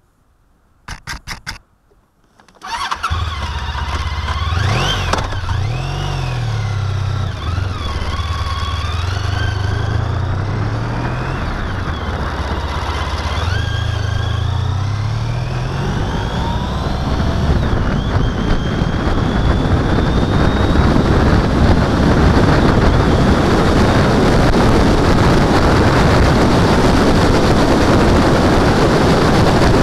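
Honda touring motorcycle being started: a brief burst of starter cranking about a second in, then the engine catches and runs, revving once. It pulls away, and from about halfway a steadily rising rush of wind and road noise on the microphone drowns out the engine as speed builds.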